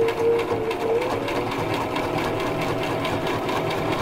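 Electric home sewing machine stitching a straight seam at a steady pace: motor hum with the rapid, even ticking of the needle, the motor speeding up slightly about a second in.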